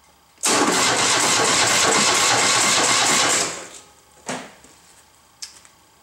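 Electric starter cranking a 2008 Ural Tourist's 750 cc air-cooled flat-twin engine for about three seconds without it firing: a compression test, with the spark plug out and a compression gauge held in the left cylinder's plug hole. The cranking then stops, and two short clicks follow.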